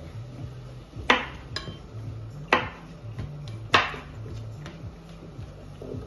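Kitchen utensils knocking: three sharp clacks with fainter taps between, from a knife chopping chili peppers on a wooden cutting board and a metal spatula working ground meat in a frying pan.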